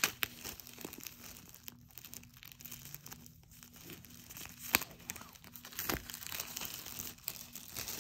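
Clear plastic shrink wrap being peeled off a cardboard product box, crinkling and crackling irregularly, with one sharp crackle near the middle.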